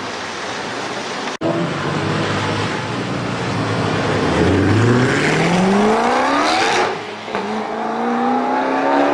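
Koenigsegg CCX's twin-supercharged V8 accelerating hard. After a low steady rumble, the engine note climbs steeply through the revs, drops at a gear change about seven seconds in, then climbs again as the car pulls away inside the tunnel.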